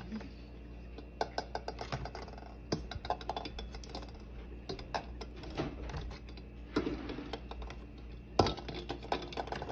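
Eggs set one at a time into a stainless-steel pot of water: a run of light, irregular clicks and taps as the shells knock against the pot and each other. Two louder knocks come near the end.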